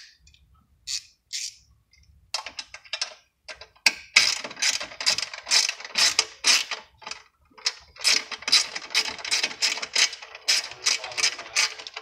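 Socket ratchet clicking in quick runs as it backs out the bolts holding the recoil starter cover on a small gasoline engine. A few single clicks come first, then steady runs of clicking from about a third of the way in, with a short break in the middle.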